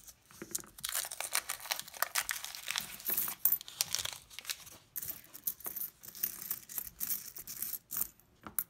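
Paper wrapper of a roll of nickels being torn open and crumpled, a dense crackle lasting about four seconds. Then nickels click against one another as they are spread out by hand.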